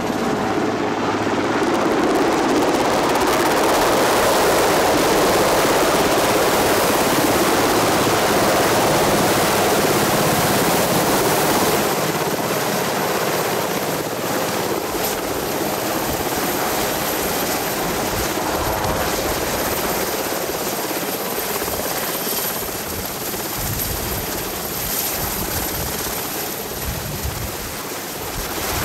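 Sikorsky VH-3 Sea King helicopter (the older Marine One) flying in and hovering low to land: steady loud rotor and turbine noise, with a low rotor thump coming through more in the second half as it hangs over the pad.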